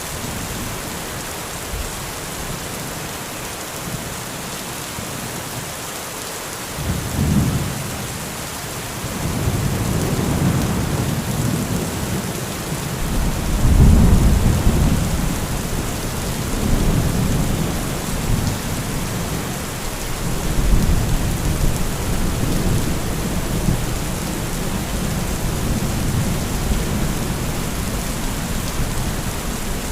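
Heavy rain falling steadily, with thunder. A short rumble comes about a quarter of the way in, then long rolling thunder swells to its loudest around the middle and carries on in waves.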